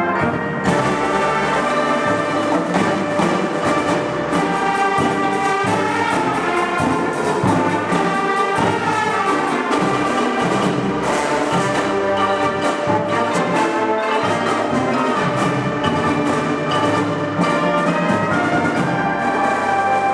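Marching band playing: loud, sustained brass chords from trumpets and trombones over a busy drum line.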